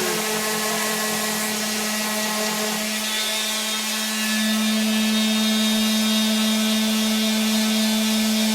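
Electric power sander running steadily with a constant motor hum, getting a little louder about four seconds in.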